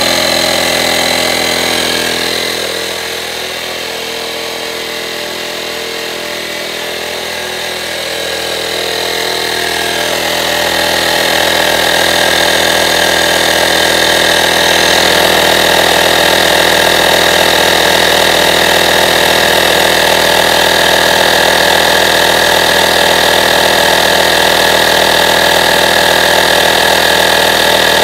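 AstroAI 12V portable tire inflator's electric compressor running steadily under load while inflating a car tire, the pressure rising from about 31.5 to 34 PSI. Its level dips slightly a few seconds in, then holds steady.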